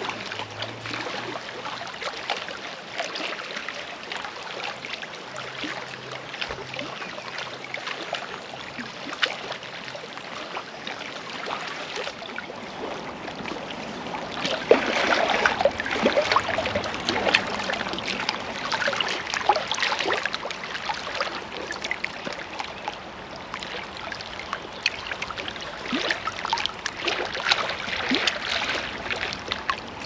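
Choppy lake water lapping and splashing against shoreline rocks, with a steady wash of small waves; it gets louder and closer about halfway through.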